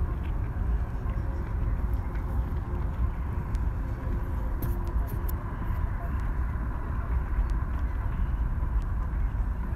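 Steady low rumbling background noise with a faint, thin steady tone above it; no speech.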